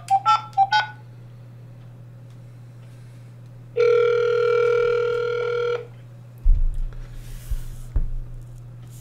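Telephone call being placed on speaker: the last few touch-tone dialing beeps, then one ringback tone about two seconds long over a steady low line hum. Near the end come a few bumps as the handset is handled.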